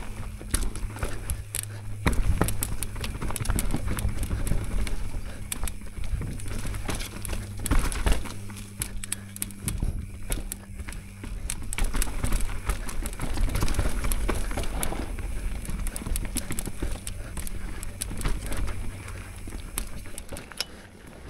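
Mountain bike riding down a rough trail: tyres on dirt and rock, with a constant clatter of sharp knocks and rattles from the bike over bumps. A steady low hum lies underneath.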